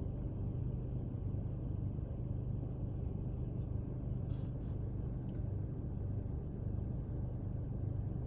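Car engine running with a steady low hum, heard from inside the cabin.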